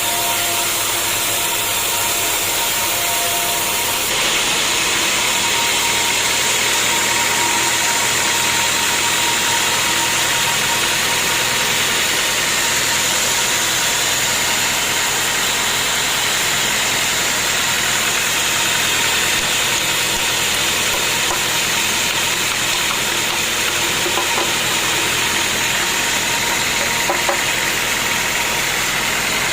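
Sawmill machinery running steadily with a constant mechanical drone and a thin steady whine; its tone shifts about four seconds in.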